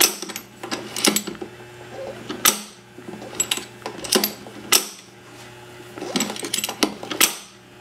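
IHC F-4 magneto turned over slowly by hand on a spark test bench, its sparks snapping across the gap electrodes: about nine sharp snaps, irregularly spaced roughly a second apart, over a faint low hum. The snaps show the restored magneto is making a good spark.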